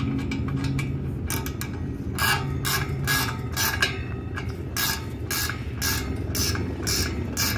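Ratchet wrench tightening concrete anchor bolts, clicking in a regular run of strokes at a little over two a second, starting about two seconds in.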